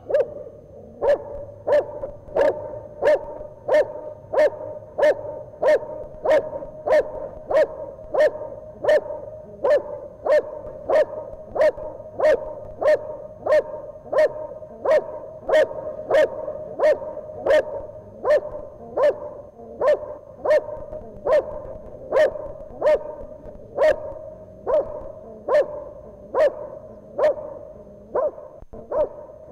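Male Belgian Malinois barking steadily and evenly at the helper, about three barks every two seconds.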